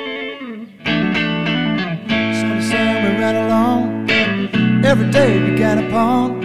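Acoustic guitar strumming chords, with a brief drop in level about half a second in. A few wavering higher notes sound over the chords in the second half.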